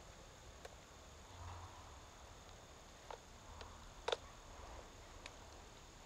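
A few faint, sharp clicks and knocks from a Stihl chainsaw being handled while its engine is off, the loudest about four seconds in.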